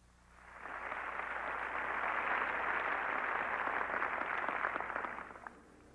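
Large audience applauding, a dense, even clatter of many clapping hands that swells up over the first second and fades away near the end.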